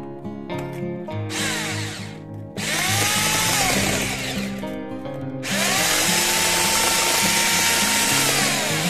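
Electric hand mixer beating runny cake batter in a bowl, switched on three times: a short burst, then two longer runs, its motor whine rising as it speeds up and dropping as it stops. Guitar music plays underneath.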